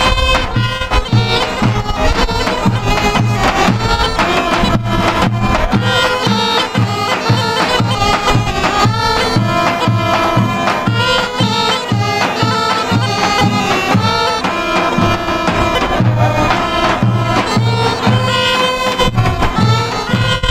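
A group of Bulgarian kaba gaidi, the large low-pitched Rhodope goatskin bagpipes, playing a Rhodope dance tune together over their drone, with a tupan bass drum beating a steady, even rhythm underneath.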